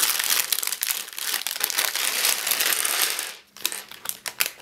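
Thin plastic bag of Lego pieces crinkling steadily as it is handled and emptied, then a few sharp clicks of hard plastic pieces dropping onto the wooden table near the end.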